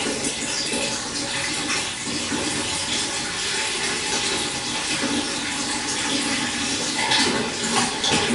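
Stream water flowing and burbling steadily, with small splashing surges.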